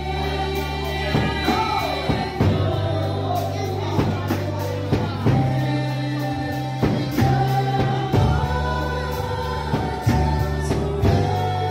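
Women singing a gospel praise song into microphones through a PA, over instrumental backing with sustained low bass notes and a steady beat.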